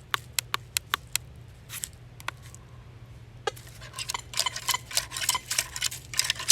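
Teknetics Patriot metal detector sweeping over a deep buried quarter. Its audio gives short, sharp clicks at about five a second, then a broken, crackly signal with a faint tone from about halfway through, over a steady low hum. The target response is clipping rather than a solid tone, the sign of a target at the edge of its depth.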